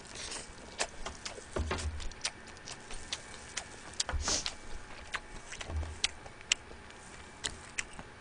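Close-miked eating of spicy steamed blue crab: irregular wet clicks and smacks of chewing and sucking meat from the shell, with a couple of short hissy slurps and three dull low thumps.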